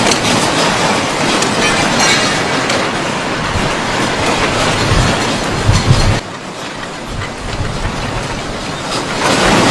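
Earthquake shaking: a loud, continuous rumbling and rattling of buildings and their fittings. It eases a little about six seconds in and builds again near the end.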